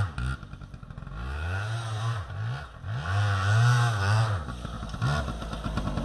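Yamaha BW80 Big Wheel's small two-stroke single-cylinder engine revving up and down in several surges as the bike is ridden through snow, its pitch rising and falling about once a second.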